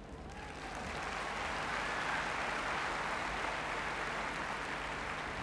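Indoor arena crowd applauding. The clapping swells in about half a second in and holds steady.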